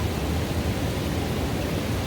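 River water running into a pool: a steady, low rushing wash with no breaks.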